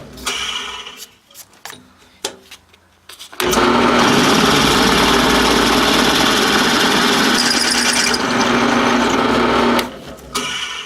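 Drill press motor shutting off, a few knocks and clicks of handling, then the drill press running again steadily for about six seconds before it is switched off.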